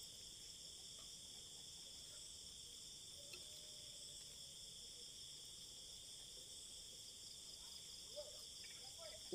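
Faint, steady chorus of crickets and other night insects, trilling in several high-pitched layers at once.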